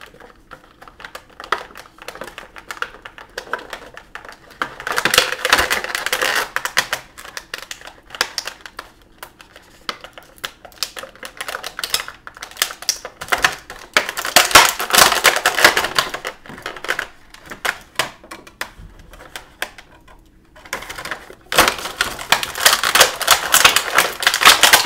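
Plastic action-figure packaging being handled and pulled apart to free the figure: rapid clicking and crackling in three bursts, about five seconds in, around fourteen seconds, and again near the end, with scattered lighter clicks between.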